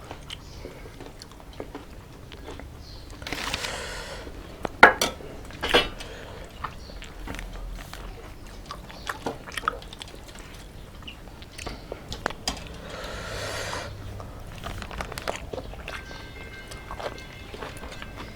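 Close-up eating: chewing and crunchy bites, with scattered sharp clicks and two louder clicks about five seconds in.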